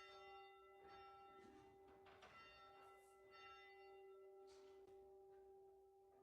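Organ playing softly in slow held chords over a sustained low note, the upper notes changing every second or so.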